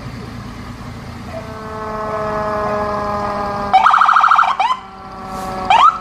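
Emergency vehicle's horn giving one long blast: several steady tones held together and sagging slightly in pitch. About four seconds in, an electronic siren joins with a rapid warble and then short rising whoops.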